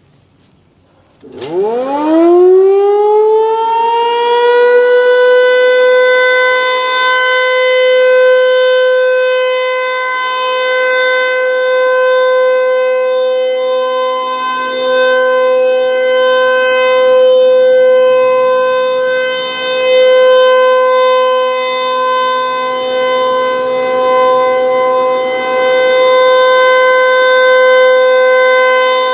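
Federal Signal 508-128 electromechanical warning siren starting up about a second in. Its pitch rises quickly and settles into one loud steady tone, the Alert signal of a nuclear-plant siren test, with the level swelling and easing slowly.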